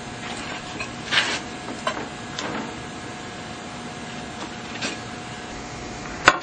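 Scattered knocks and rustles from a disposable foil pan and a serving platter being handled as a sauced turkey is lifted between them, with a sharp clack near the end, over a steady background hum.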